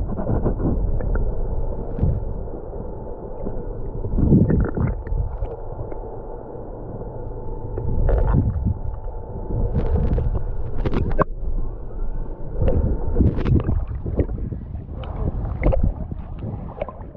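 Water sloshing and bubbling around an underwater camera, with a low rumble and a faint steady hum. Sharp splashes come every few seconds, more often near the end.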